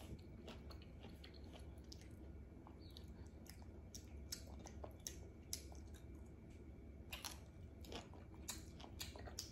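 Faint chewing of ripe fruit, with scattered small wet mouth clicks, over a low steady hum.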